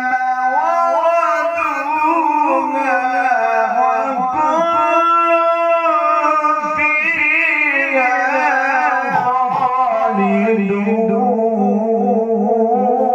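A man's voice reciting the Quran in the melodic tajweed style, drawing out one long ornamented phrase with rising and falling pitch and a fast wavering trill. About ten seconds in, the voice drops to a lower pitch.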